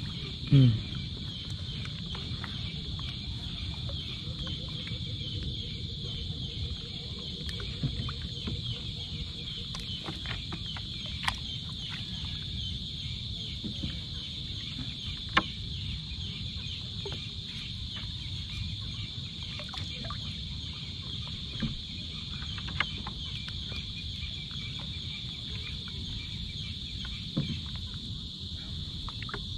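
Steady high-pitched insect chorus with scattered faint clicks and knocks.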